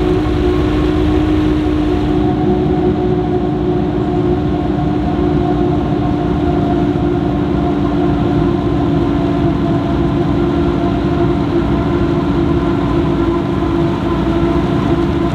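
Forage harvester running steadily at work, a constant whine of several steady tones over a low engine rumble.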